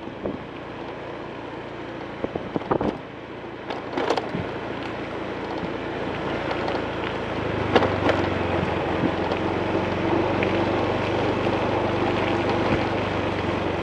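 A motor vehicle engine runs steadily under wind noise on the microphone. About halfway through, a low engine hum sets in and the sound grows louder. A few brief sharp sounds stand out over it.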